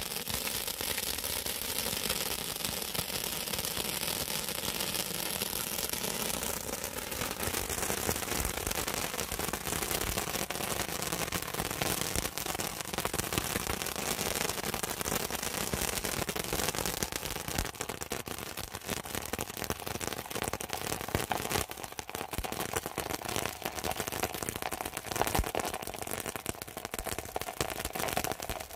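Handheld tube firework spraying sparks, with a steady hissing rush and dense, rapid crackling pops that cut off at the end.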